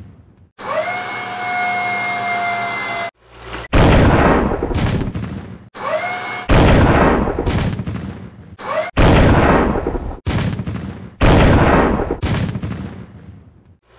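Tank cannon sound effects: about four heavy blasts, each dying away into a rumble, roughly every two and a half seconds. Before the first blast, a whine rises and then holds steady for a couple of seconds.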